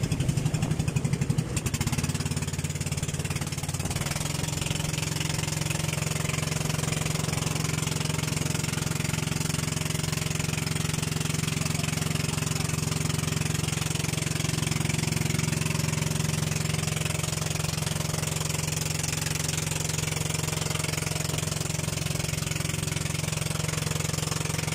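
Engine of a motorized outrigger boat running at a steady speed under way, with a constant drone.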